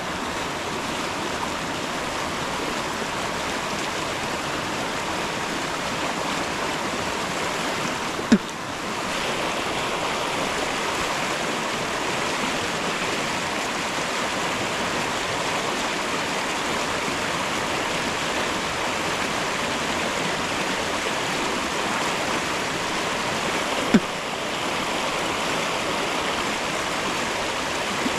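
Creek water rushing steadily over a shallow riffle. Two brief sharp knocks cut through it, one about eight seconds in and another about twenty-four seconds in.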